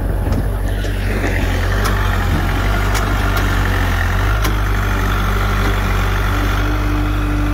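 Kubota tractor's diesel engine running steadily under load as its front loader digs into wet mud, with a steady high tone joining it about a second in.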